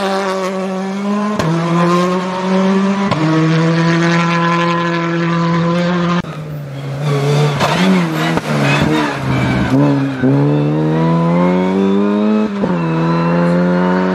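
Rally car engines at full throttle: a Hyundai i20 rally car pulling hard and shifting up through the gears, with the pitch climbing and dropping back at each change. After a sudden change about six seconds in, an Opel Adam rally car revs up with another upshift near the end.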